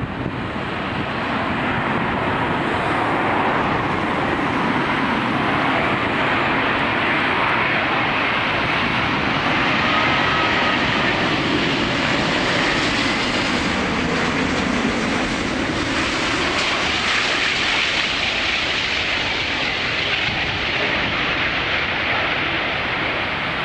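Airbus A380 jet engines during a landing. A loud, steady jet noise whose tone bands sweep slowly up and down as the aircraft goes by, louder in the middle.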